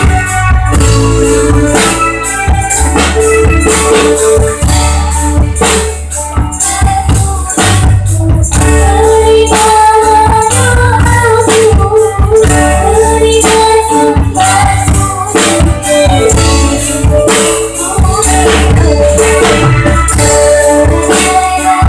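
A young girl singing over loud band accompaniment with a steady bass, drums and tambourine.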